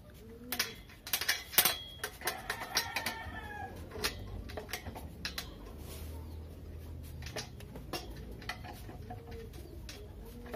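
Irregular sharp metal clicks and clinks of a small flat spanner working a hex nut on a bolt of a steel table frame, with chickens clucking in the background.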